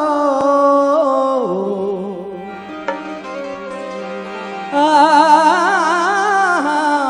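Qawwali music: a harmonium plays under a man's wordless sung notes. About five seconds in it grows louder, with long wavering held notes.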